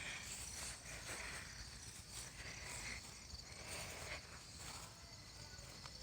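Faint outdoor ambience of insects chirping steadily, high-pitched, with soft rustling now and then.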